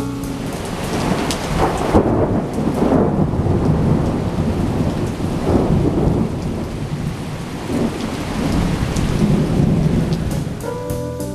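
Thunder over steady rain: a sharp crack about two seconds in, then rolling rumbles that swell and fade several times.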